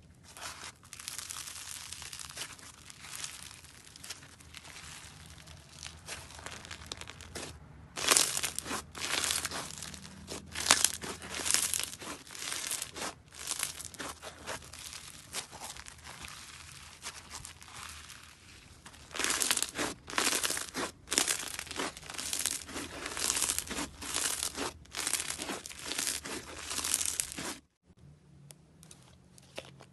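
Fingers pressing into, kneading and stretching grainy, crunchy textured slime, making crackling, crinkling and tearing sounds. These come in louder bunches of quick pops. The sound cuts off suddenly near the end.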